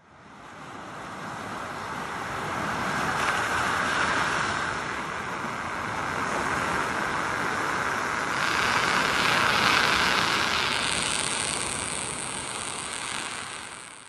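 Sea surf washing onto a sandy beach: a steady rush of small waves that swells twice, about four seconds in and again near ten seconds.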